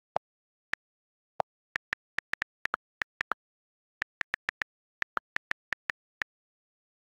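iPad on-screen keyboard click sounds as text is typed: a quick, irregular run of short ticks, several a second, with a few lower-pitched clicks among them from the space and delete keys.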